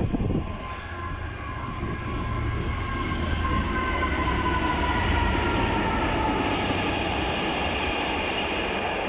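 Freightliner Class 66 diesel-electric locomotive, a two-stroke V12, passing at speed with a container freight train. There is a deep engine and wheel rumble, and whining tones slowly fall in pitch as the locomotive goes by, followed by the steady run of its container wagons.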